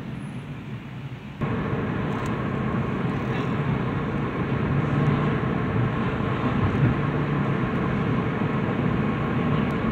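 Car running along a road, heard from inside the cabin: a steady hum of engine and tyre noise. It starts abruptly about a second and a half in, after a quieter stretch.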